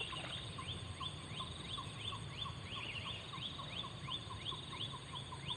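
A strange repeated animal call: quick rising chirps, about three a second, each with a lower note beneath it, going on steadily.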